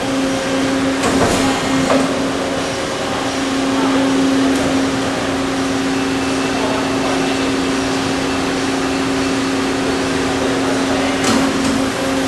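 CNC tube bending machine running, a steady mechanical hum holding two low tones, with a few sharp knocks near the start and one near the end.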